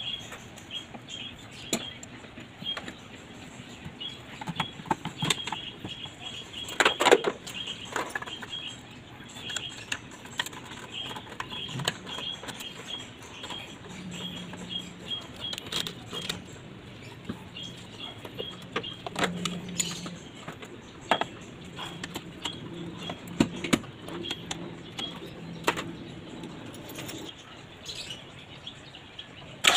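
Intermittent clicks, taps and knocks of a screwdriver and plastic air-intake parts being handled and snapped back into place, with a louder flurry of clicks about seven seconds in.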